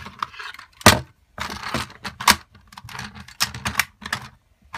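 Plastic Transformers Optimus Prime toy being transformed by hand: a run of irregular clicks and clacks as its parts are snapped and swung into place, the loudest about a second in.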